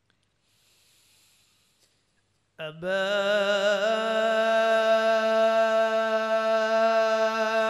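A man's voice reciting the Quran in a melodic tajweed style. It starts abruptly about two and a half seconds in on one long held note, wavering through a short ornamental turn at first, then sustained steadily.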